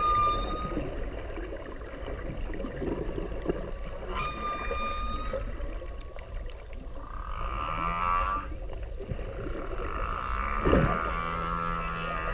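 Whale calls: a short high pitched tone with overtones right at the start, a longer one about four seconds in, a wavering, warbling call around seven to eight seconds, and near the end a long call joined by a low steady hum, all over a constant low rumble.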